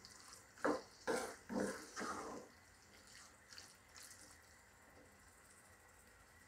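A wooden spatula stirring thick, sticky pineapple pickle in a pot: four soft, wet scraping strokes in the first two and a half seconds, then only faint sounds.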